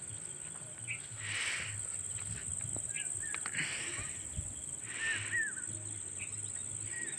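Crickets and other insects keeping up a steady high-pitched drone at dusk in farmland. Short bird chirps come in pairs a few times, and there are a few soft rushes of noise.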